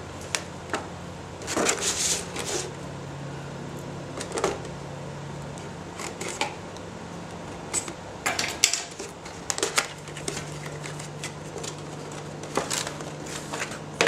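A cardboard retail box and its plastic packaging being handled and opened by hand: scattered clicks, scrapes and rustles at irregular intervals, over a steady low hum.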